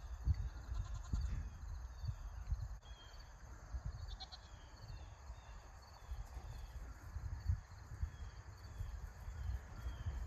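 Quiet outdoor ambience of wind rumbling on the microphone, with goats bleating faintly.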